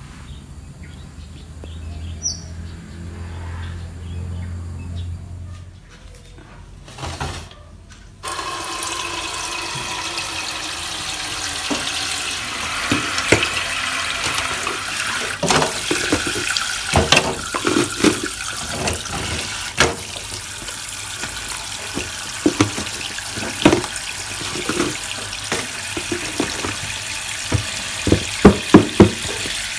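Kitchen tap running into a plastic bowl in a stainless-steel sink, filling it with water to soak rice vermicelli. The water starts abruptly about eight seconds in after a quiet opening, with repeated knocks and clatters of plastic containers and a lid being handled, loudest near the end.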